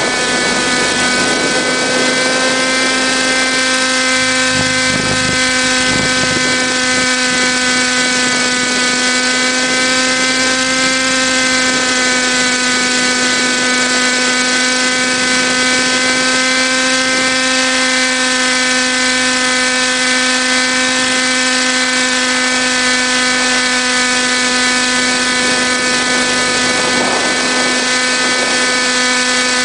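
Helicopter in flight: its motor and rotor make a loud, steady whine at an even pitch that wavers slightly now and then.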